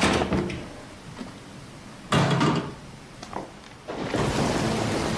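A drawer slid open with a knock at the start and run shut with a clatter about two seconds later. About four seconds in, steady heavy rain comes in.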